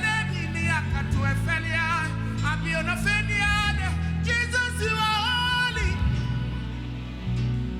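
Gospel music: a sung melody with wavering vibrato over a steady bass line.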